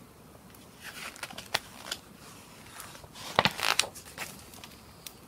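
Paper page of a large picture book being turned by hand: short crisp rustles, then a louder paper rustle and flap about three and a half seconds in as the page goes over.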